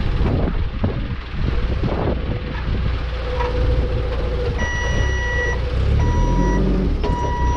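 Clark C25 LPG forklift running, with its reversing alarm starting about halfway through: long repeated beeps, about one a second, the sign of the forklift backing up.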